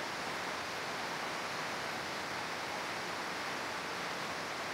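Rain falling steadily: an even, unbroken hiss.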